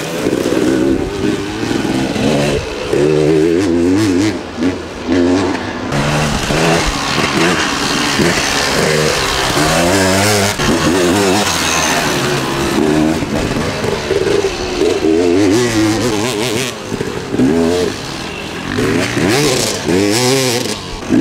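KTM 300 EXC single-cylinder two-stroke enduro motorcycle engine, ridden hard, revving up and falling back again and again with the throttle and gear changes, with a few brief drops as the throttle is shut off.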